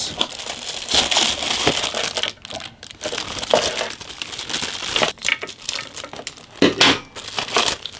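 Plastic packaging bags crinkling and rustling as loudspeakers are pulled out of them and unwrapped, with a few sharper clicks in the second half.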